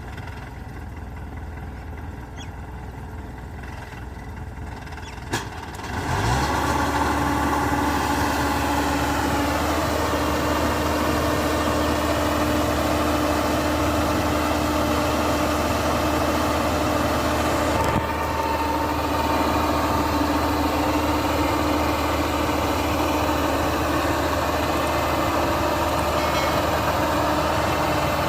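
Rice combine harvester's engine running steadily, then about six seconds in it rises to a louder, steady working speed with a held mechanical whine, as the machine pours paddy out of its grain tank.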